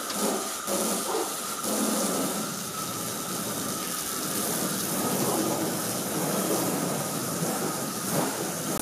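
Water from a hose spraying onto a soapy car body and splashing off it, a steady hiss of rinse water.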